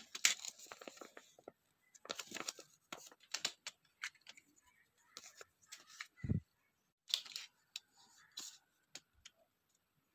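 A paper instruction leaflet rustling and crinkling as it is handled, among scattered clicks and taps of plastic tripod parts, with a single dull thump about six seconds in.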